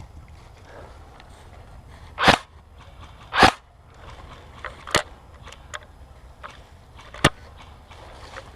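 Airsoft guns firing single shots: four sharp cracks spread over several seconds, the first two the loudest, with fainter clicks and pops between them.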